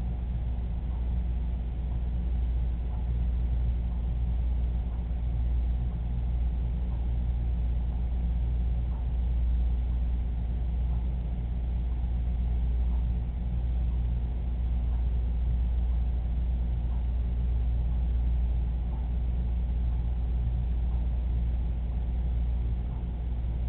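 Steady, unchanging low hum with faint hiss: the background noise of a security camera's microphone, with no events in it.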